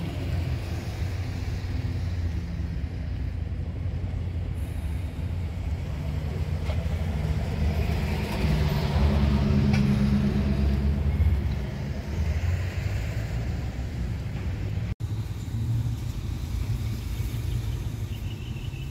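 Low, steady rumble of a running vehicle engine with a hum, swelling for a few seconds in the middle. It drops out for an instant about 15 seconds in.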